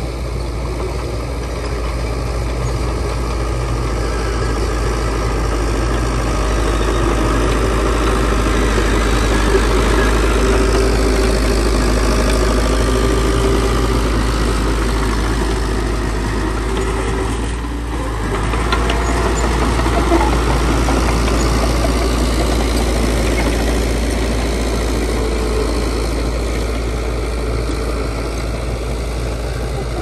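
Heavy diesel engine of construction machinery running steadily with a deep rumble, swelling for a while and easing off briefly a little past halfway before picking up again.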